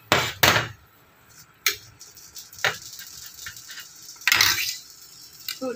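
Metal ladle and utensils knocking and scraping against a stainless steel soup pot while fish soup is stirred: two loud knocks at the start, a couple of single clinks, and a longer scrape about four seconds in.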